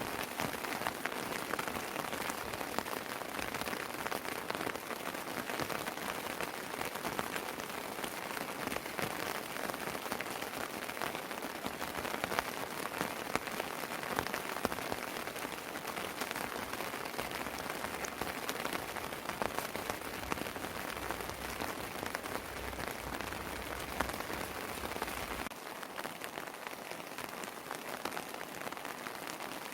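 Steady rain falling on terrace surfaces: a dense, even patter of raindrops that eases slightly near the end.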